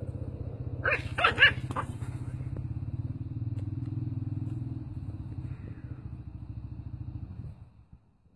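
A small puppy yapping sharply three or four times about a second in, over a steady low pulsing rumble that stops near the end.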